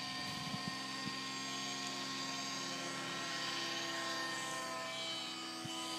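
Electric motor and propeller of an FMS Cessna 182 radio-controlled model plane flying overhead, giving a steady whining drone. Its pitch shifts about four to five seconds in.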